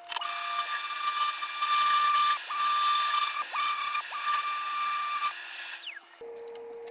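A high-speed power tool motor running with a steady whine, its pitch dipping briefly a few times, then winding down with a falling pitch near the end. A quieter steady hum follows.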